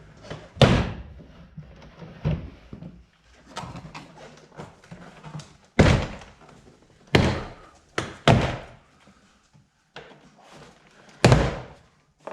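A BMW F20 door card being forced off the door without a trim tool: about seven sharp thunks and pops, spaced irregularly, with quieter plastic rustling between them.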